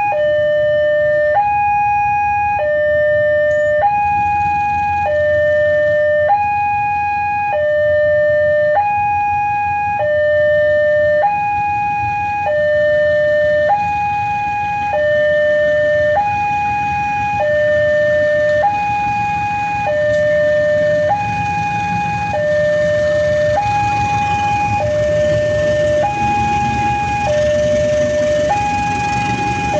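Railway level-crossing alarm siren sounding a steady two-tone hi-lo warning, each tone held for about a second, with the barrier down for an approaching train. A low rumble grows under it in the second half.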